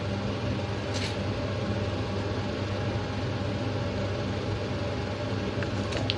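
Steady hum and hiss of a running motor or fan, with a light click about a second in and two more near the end.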